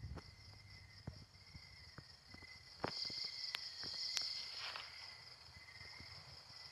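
Night-time insect chorus: a steady high-pitched trilling that swells louder about three seconds in, over a fainter, lower trill, with scattered faint clicks.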